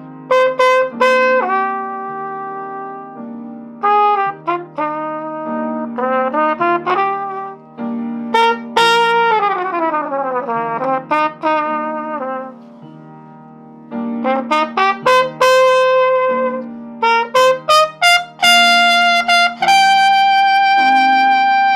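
Music: an improvised melody on a trumpet-like brass lead over sustained low chords. It plays in short phrases, with a quick falling run about nine seconds in and a long held high note near the end.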